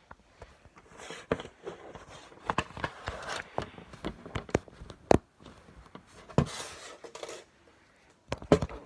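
Clothes being rummaged through: fabric rustling in a few short bursts, with sharp clicks and knocks scattered throughout, the loudest a little past the middle.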